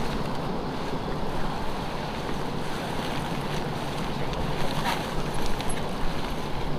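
Wind buffeting the microphone: a steady rushing noise, heaviest in the low end, with a brief click about five seconds in.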